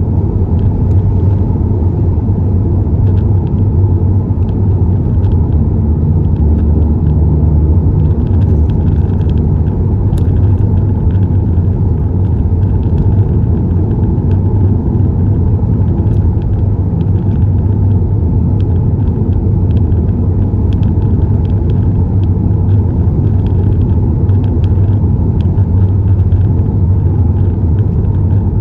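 Steady low rumble of a car driving at road speed, engine and tyre noise heard from inside the cabin, with light scattered ticks over it.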